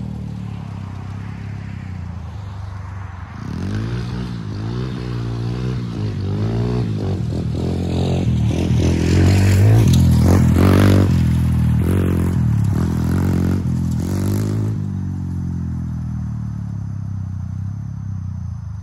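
125 cc Chinese pit bike's single-cylinder four-stroke engine revving up and down again and again under throttle blips, loudest about ten seconds in, then settling back toward a steadier low running sound after about fifteen seconds.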